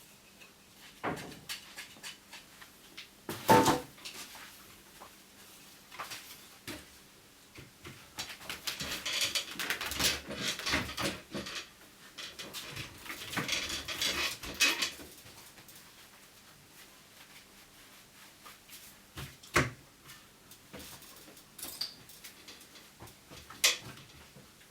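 Scattered knocks, clicks and rustling handling noises. The loudest knock comes about three and a half seconds in and another sharp one near twenty seconds. There are two spells of denser rustling, around ten seconds and around fourteen seconds.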